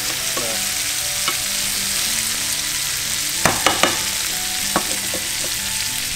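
Blackened Bermuda chub fillets and onions sizzling steadily as they fry in butter in a frying pan. A quick cluster of sharp clicks comes about three and a half seconds in, and a single click near five seconds.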